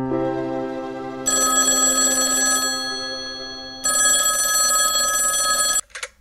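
Soundtrack music: a held low note with two bursts of bright, bell-like ringing, each a second or two long with a pause between, ending in a sudden cut near the end.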